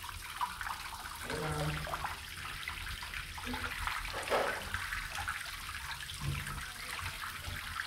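Water running and lapping in a small bathtub around a person lying in it, with a louder splash about four seconds in.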